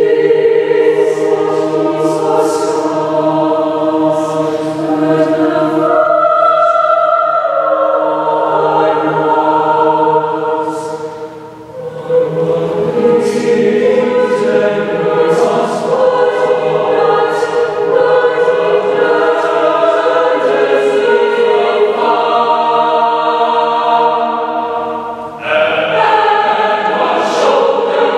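Mixed choir of teenage voices singing sustained chords phrase by phrase, with two short breaks between phrases, one near the middle and one about three-quarters through, and crisp 's' consonants sung together.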